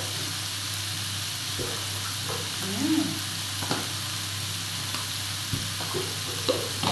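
Mixed seafood and garlic frying in an electric pan: a steady sizzle, with a few light taps.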